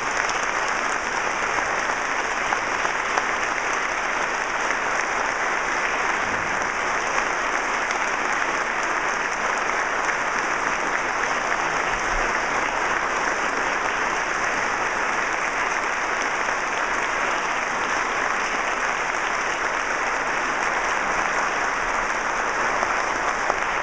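A large audience and the seated band members applauding together, a long, steady round of clapping.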